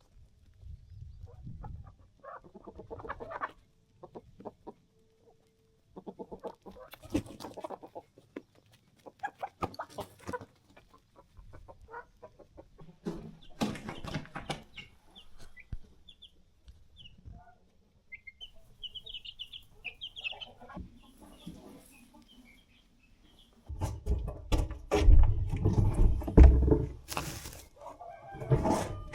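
Domestic chickens clucking on and off, with a few high chirps about two-thirds of the way through. A much louder, low noise takes over near the end.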